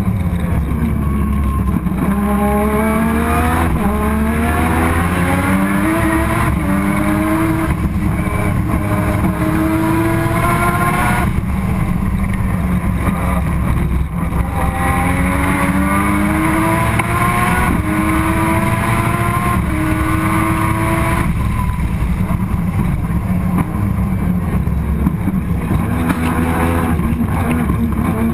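Turbocharged Mazda RX-7 race car's 20B three-rotor rotary engine heard onboard, climbing in pitch as it accelerates through the gears, dropping back at each shift or lift for a corner, then pulling up again.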